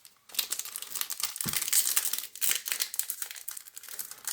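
Close crinkling and rustling of a Topps baseball-card pack's plastic wrapper being handled, with a soft low thump about a second and a half in.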